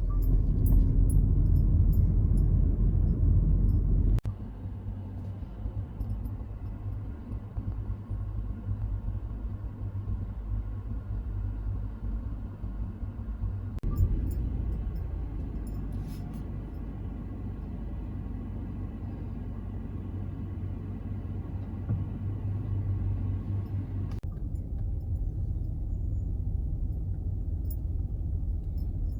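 Car engine and road rumble, low and steady. It is loud for about the first four seconds, drops suddenly, then carries on more quietly, with a faint steady whine over most of the middle.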